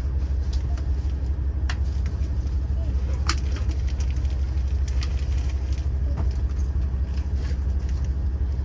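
Steady low hum inside the carriage of a diesel train standing at an emergency stop, with a few light clicks and a faint murmur of voices.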